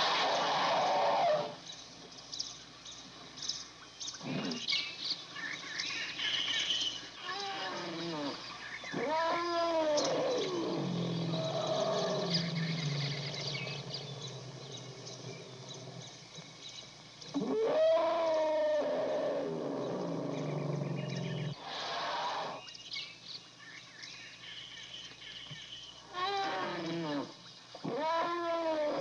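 Elephant calls: three bouts of trumpeting, each a few calls that rise and then fall in pitch, with low rumbles after the first two bouts and short harsh blasts in between.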